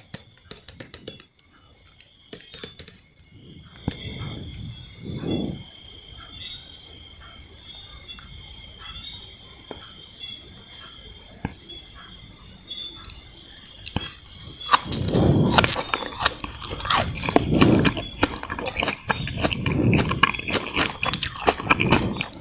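Close-miked biting and chewing of sugar-coated jelly candies: soft sticky mouth clicks at first, then loud, repeated crunchy, squishy bites and chews from about two-thirds of the way in. A faint, high pulsing trill sits in the background for the first half and then stops.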